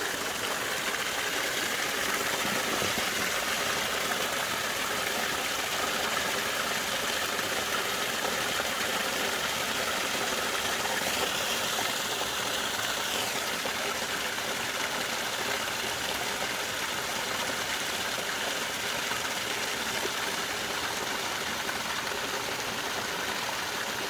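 Small waterfall on an icy creek, water splashing and trickling over the ice in a steady rush.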